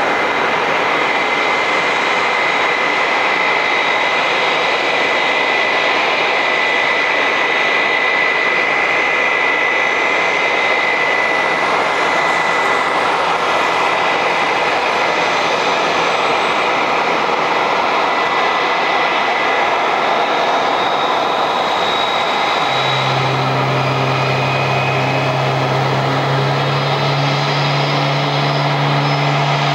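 Airbus A320-family jet airliner running during pushback: a steady jet roar with a high, even whine. About three-quarters of the way through, a steady low hum joins in.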